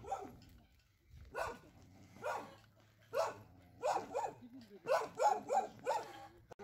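A dog barking repeatedly, about ten short barks: single barks spaced about a second apart at first, then quicker runs of barks from about four seconds in, growing louder.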